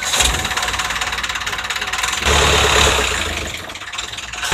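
A small boat's engine running, with water and wind noise, growing louder and deeper a bit over two seconds in.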